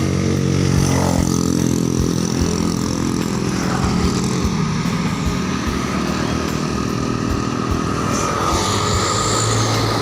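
Intercity bus passing close by, its engine drone dipping in pitch about a second in and fading after two to three seconds, followed by steady road traffic noise.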